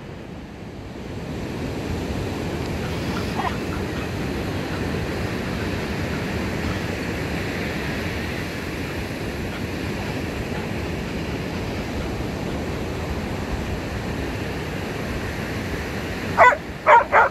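Steady rush of ocean surf and wind on the microphone. Near the end a dog gives a few short, high yips.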